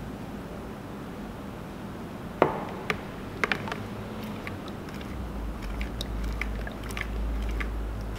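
A metal spoon knocking against a plastic tub, with one sharp knock about two and a half seconds in and then lighter clicks and ticks as it stirs melted coconut oil. A low rumble sits underneath in the second half.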